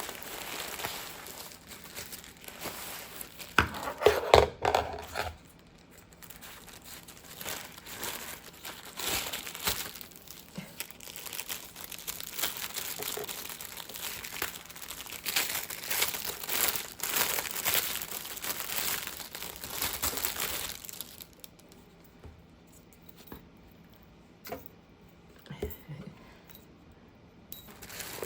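Wrapping crinkling and crumpling as it is handled, with a few louder knocks about four seconds in. The crinkling goes on for about twenty seconds, then gives way to quieter handling with a few faint clicks.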